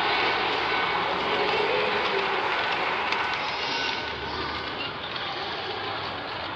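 Model freight train running past on its track: a steady rolling and rattling of wheels on rails, which grows quieter about four seconds in as the locomotive moves on and the tank cars follow.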